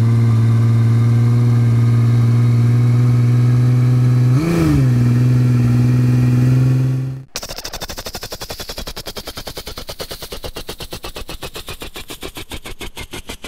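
School bus engine and vehicle sounds: a loud, steady low drone for about seven seconds, dipping briefly in pitch about halfway through, then cutting off abruptly. A rapid, even, quieter engine clatter follows, with a faint falling whine over it.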